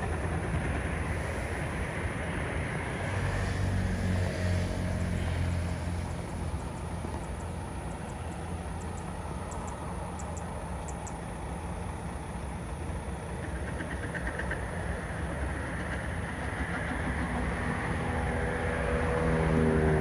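Distant Airbus A320 jet airliner's CFM56 engines at takeoff power: a steady rumbling engine noise that grows louder near the end as the takeoff run builds.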